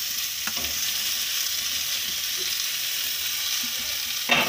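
Boiled amla (Indian gooseberry) pieces frying in hot mustard oil in a metal kadhai, a steady sizzle, with a brief knock against the pan near the end.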